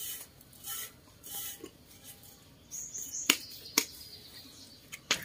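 Hands working a crumbly mixture with chopped greens in a large metal basin: soft rustling scrapes, then three sharp clinks against the metal, two about three seconds in and one near the end.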